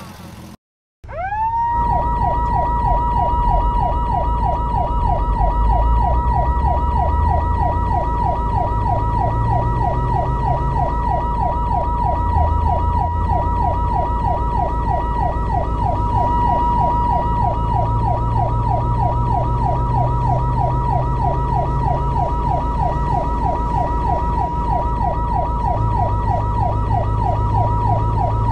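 Fire truck siren on yelp. After a brief break it rises quickly to pitch and then holds one steady high tone, with a rapid warble going up and down about three times a second, over a low rumble.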